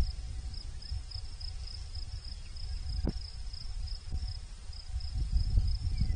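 An insect trilling in a steady, rapidly pulsing high tone, over a low rumble of wind on the microphone, with a couple of soft knocks.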